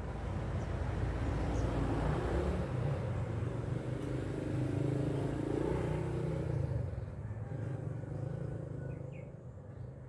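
A motor vehicle's engine running with low road rumble, dying away after about seven seconds.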